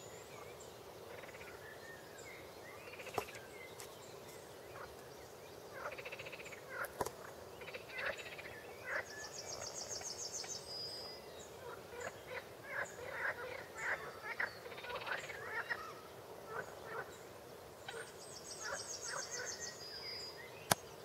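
Wetland chorus of short croaking calls from pond frogs and birds, growing busier after the first few seconds. A high, rapid buzzing trill comes twice, about ten seconds in and near the end, with a couple of sharp clicks.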